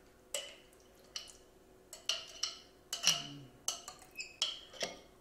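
Spatula and glass jar knocking against a small stainless steel saucepan as thick huckleberry jam is scraped out into it: a dozen or so irregular sharp clinks and taps, some with a short metallic ring.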